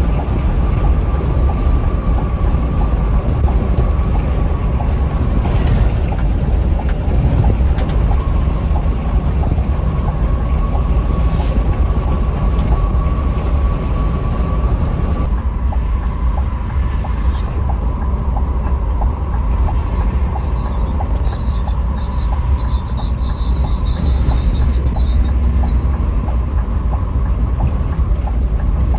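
Scania K360iB coach running at speed on the highway, heard from inside: a steady low rumble of engine and road with a steady whine above it. The sound changes abruptly about halfway through.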